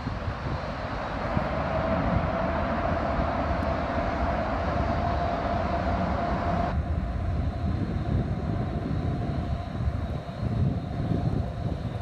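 Jet airliner engines running out of view, a loud, even rush with a steady whine that rises slightly in pitch. About seven seconds in, the higher part of the noise cuts off suddenly. Wind rumbles on the microphone throughout.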